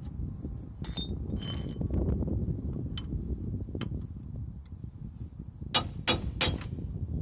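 Steel hand tools clinking and ringing against metal, then three sharp hammer blows on metal in quick succession.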